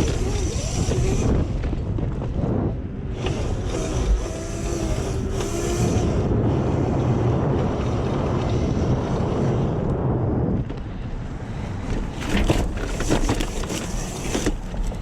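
Electric dirt bike being ridden over dirt: the electric motor's whine and chain drive rise and fall with speed, under heavy wind noise on the microphone.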